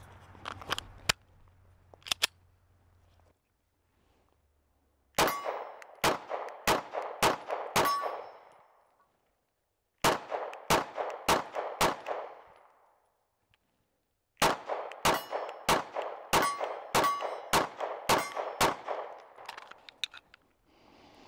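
Canik MC9 L 9mm pistol firing Blazer 115-grain full metal jacket rounds in three quick strings of shots, two or three shots a second, with pauses of a couple of seconds between strings. A few light clicks of handling come in the first two seconds.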